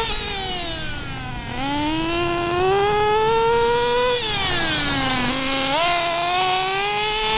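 Two-stroke nitro engine of a Redcat Racing RC buggy running with its high-speed needle properly tuned, a high-pitched whine that rises and falls with the throttle as the buggy is driven. The pitch drops over the first second and a half, climbs until about four seconds in, drops again, then jumps up near six seconds and climbs once more.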